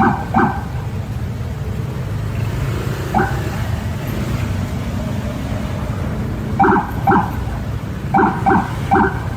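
Car horn sounding in short repeated toots: one, then another a few seconds later, then a quick run of six near the end. A steady low traffic rumble runs underneath.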